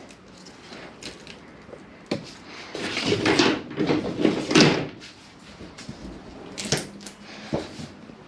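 A plastic windscreen wiper cowl panel being lifted and worked loose from the base of the windscreen: scattered sharp plastic clicks and knocks, with a denser run of louder scraping and rattling about three to five seconds in.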